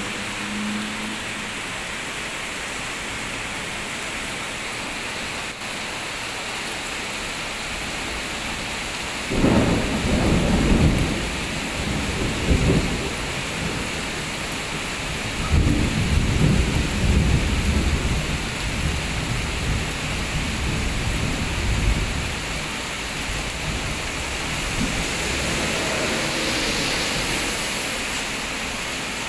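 Heavy tropical rain pouring steadily onto a road and the shop-front pavement. Deep rolls of thunder rumble in about a third of the way through and come and go over the next several seconds. Near the end a truck swishes past on the wet road.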